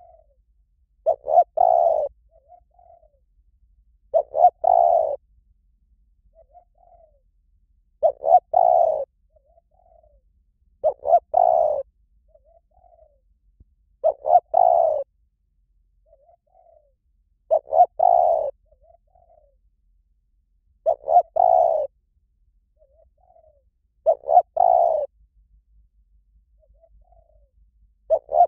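Spotted dove cooing its territorial call over and over: a soft short lead-in note, then a louder broken coo, repeated about every three and a half seconds, nine times.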